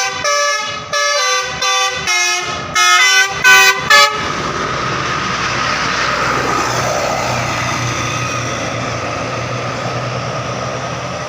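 Bus telolet horn: a multi-tone musical air horn playing a quick run of short notes at changing pitches, the last few the loudest, ending about four seconds in. Steady engine and road noise of the bus follows.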